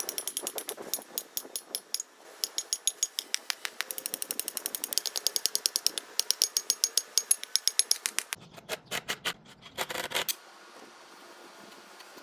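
A rapid run of sharp metallic clicks, several a second, with a thin ringing edge; the run breaks off about two-thirds of the way through into a few short clusters of clicks.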